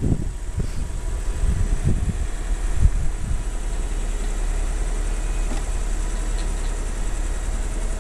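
Mitsubishi 3000GT Spyder's V6 idling steadily while its power retractable hardtop cycles, with a faint steady motor whine over the engine's low hum. A few low thumps come in the first three seconds.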